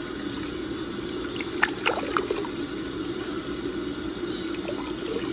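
Bathtub faucet running steadily into a partly filled tub, with a few brief sharp sounds about two seconds in.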